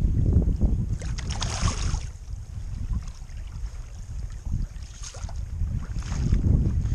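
Wind rumbling on the microphone, with small lake waves washing over a pebble shore in a few brief, hissing swishes, the strongest about a second in.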